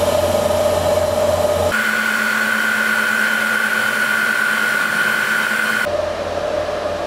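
TIG welding arc from an Everlast PowerTIG 210 EXT inverter on 2 mm stainless steel with a 2.4 mm electrode: a steady hiss with a steady whine. The whine jumps higher about two seconds in and drops back near the end.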